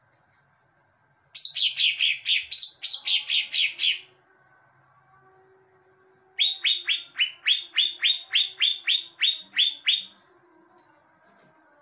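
Caged greater green leafbird (cucak ijo) singing two runs of rapid, repeated sharp chirps, about four a second, each note slurring downward. These sparrow-like notes are its learned mimicry of Eurasian tree sparrow (burung gereja) chirping.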